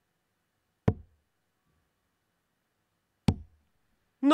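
Two steel-tip darts striking a Winmau Blade 6 sisal bristle dartboard: one sharp thud about a second in, another about two and a half seconds later.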